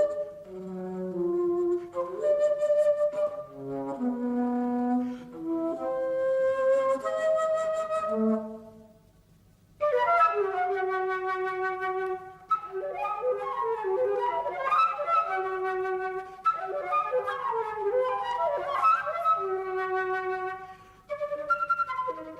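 Background music: a melody of held notes, breaking off about nine seconds in and resuming a second later with several overlapping lines.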